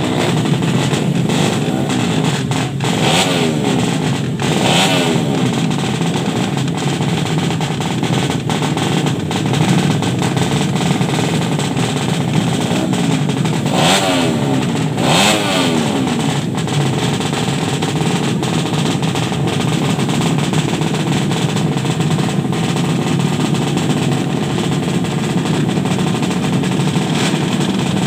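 Small drag-race motorcycle engines running continuously. Throttle is blipped into quick revs that rise and fall several times, most clearly about three, five, fourteen and fifteen seconds in.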